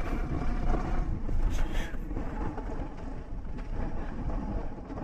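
Kawasaki Versys motorcycle riding along, its engine running steadily with wind rushing over the microphone.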